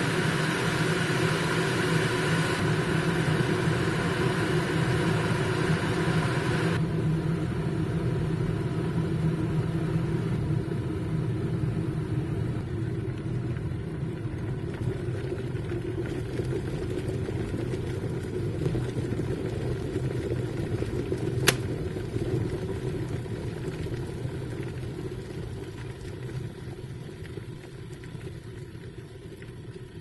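Stainless-steel electric kettle boiling hard: a steady bubbling noise. About two-thirds of the way through comes one sharp click, typical of the kettle's automatic switch-off at the boil, and the bubbling then slowly dies away.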